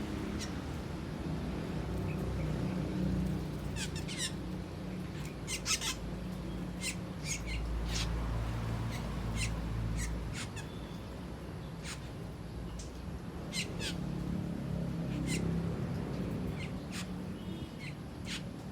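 Asian glossy starlings giving short, sharp calls, one after another at irregular intervals, over a steady low rumble.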